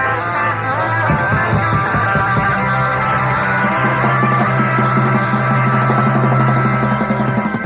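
Live rock band playing a loud closing passage: held bass notes, electric guitar chords and drum rolls and hits. The bass note steps up about two and a half seconds in, and the whole band stops together just before the end.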